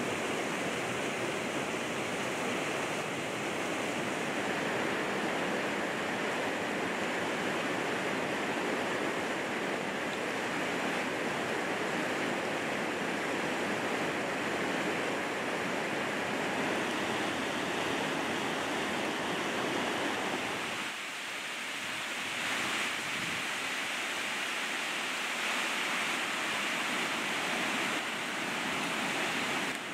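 Steady rush of a fast, white-water mountain river. It thins a little in the low end about two-thirds of the way through.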